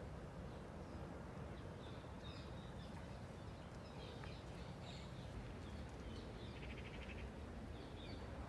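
Small birds chirping and calling intermittently, with a short rapid trill about seven seconds in, over a faint steady low background rumble.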